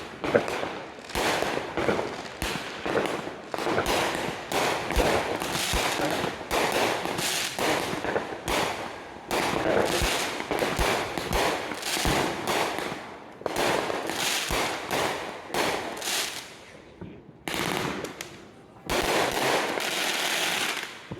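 Fireworks going off in rapid succession: a dense run of bangs and crackling, with a brief lull about three-quarters of the way through before another burst.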